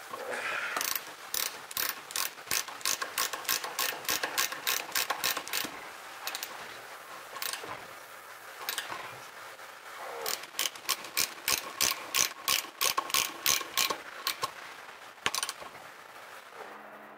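Ratchet wrench clicking in quick runs of about four clicks a second as it is swung back and forth while tightening a brass plumbing fitting held in a bench vise; two spells of clicking with a pause in the middle.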